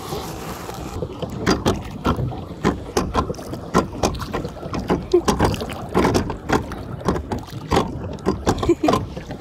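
Water splashing and lapping as a hand trails through lake water beside a small paddle boat, with many short, irregular splashes and knocks.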